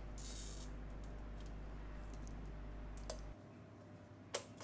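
Mirror glass being snapped along scored breakaway lines and the cut piece lifted free: a brief scratchy hiss, then a few sharp clicks of glass on glass. A steady low hum cuts off about three seconds in.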